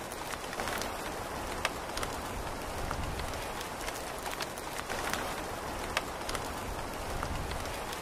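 Steady rain falling, with many distinct drop hits through it and two sharper, louder drops about a second and a half in and again near six seconds.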